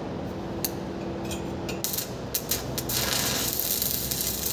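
Stick (MMA) welding arc on a steel pipe-to-elbow joint, run with a 2.5 mm electrode at 110 A. A few sharp clicks come as the electrode is struck. About three seconds in the arc catches and burns with a steady crackling hiss while a tack weld is laid.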